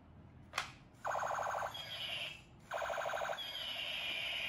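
Battery-powered toy gun's electronic battle sound effects through its small speaker: a click, then a rapid machine-gun rattle, a falling whistle, a second rattle and a long falling whistle.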